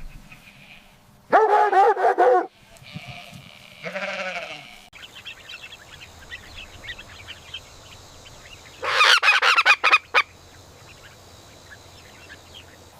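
Farm animals calling: a long, loud wavering call about a second in, a shorter fainter call, soft chatter, then a quick run of loud sharp calls about nine seconds in.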